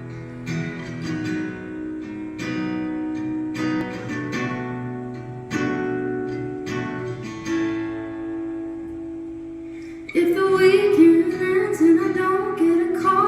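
Acoustic guitar playing an intro of plucked chords and notes. About ten seconds in, a woman's voice starts singing over it, louder than the guitar.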